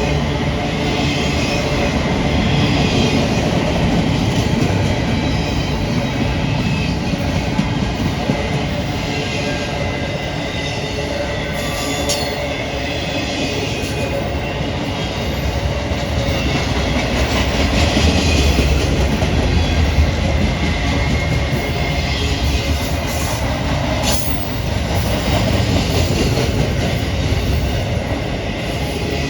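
CSX freight train rolling past, steel wheels on the rails giving a steady rumble and clatter with some high squeal.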